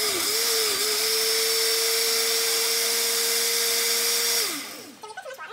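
Countertop blender running on water, cilantro, onion and serrano peppers, pureeing them into a green sauce. Its motor whine wavers at first, then holds steady, and falls in pitch as the blender is switched off and winds down about four and a half seconds in.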